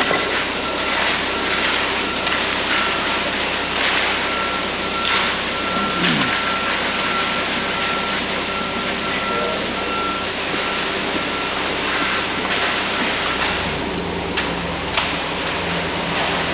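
Concrete truck's diesel engine running, with a reversing alarm beeping for about the first ten seconds.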